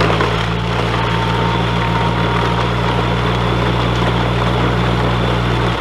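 LPG-powered Yale forklift's engine revved up and held at a steady high speed as it strains to drive out of deep mud it is stuck in.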